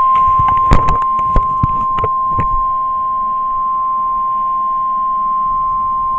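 NOAA Weather Radio's steady 1050 Hz warning alarm tone, heard through the radio's speaker over a hiss of static, signalling an alert broadcast (here a tornado watch). Several sharp clicks in the first couple of seconds; the tone cuts off at the end.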